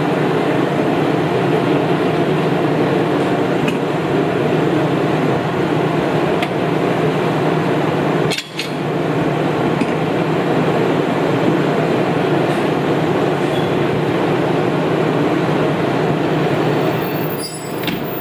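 Diesel railcars idling, a steady drone with a few light clicks on top; a short dip comes about eight seconds in.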